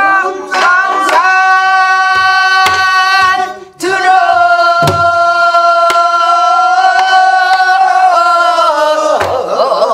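A woman singing a pansori danga in long, held notes that bend at their ends, to her own accompaniment of a few strokes on a buk, the Korean barrel drum, struck with a stick and the bare palm.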